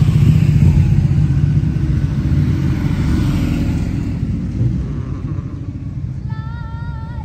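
Motorcycles riding past on the road, a low engine rumble that is loud at first and fades away over several seconds. A brief high wavering call sounds near the end.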